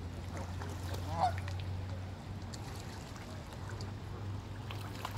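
Canada goose honking once, loudly, about a second in, among a few fainter calls from the flock, over a steady low hum.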